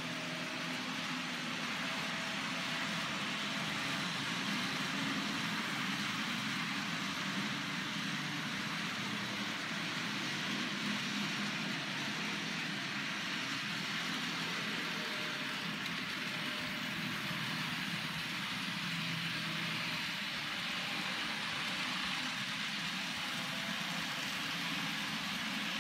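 N-scale model trains running on the layout: a steady whir of the small electric locomotive motors and the wheels rolling on the rails, with a faint low hum under it.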